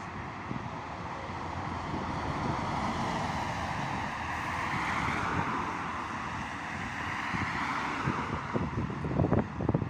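Fire brigade officer's car pulling out of the station and driving away: a steady vehicle and traffic noise. Wind buffets the microphone in gusts near the end.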